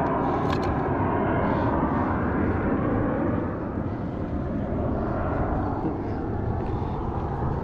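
Military jet aircraft flying over during air show practice, a steady rushing rumble that grows a little quieter about three and a half seconds in.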